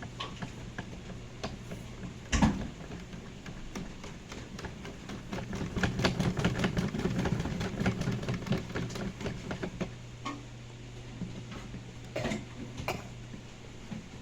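Washing machine running: a steady low motor hum, a single thump, then several seconds of rapid clicking and rattling, with a couple of further clicks near the end.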